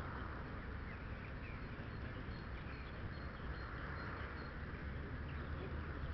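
Wind rumbling on the microphone, with faint short bird chirps in the background.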